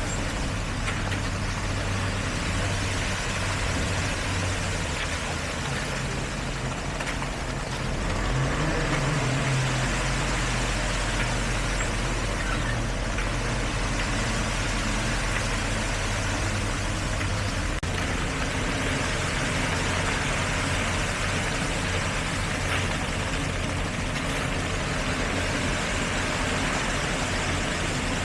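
Heavy diesel engines of road-construction machinery running steadily at a concrete paving site, with a low rumble and a wide mechanical noise; the engine note changes about eight seconds in.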